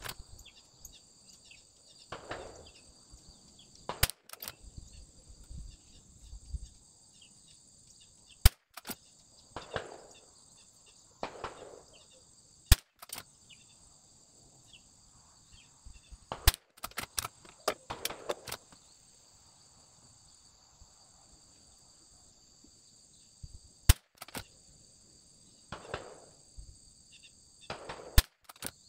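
Sharp single shots from a bolt-action .22LR rimfire rifle, about six of them roughly four seconds apart, over a steady high-pitched insect buzz.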